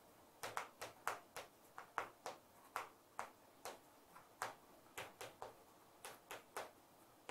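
Chalk writing on a blackboard: a quick, irregular run of short, faint taps and scrapes as each stroke is made.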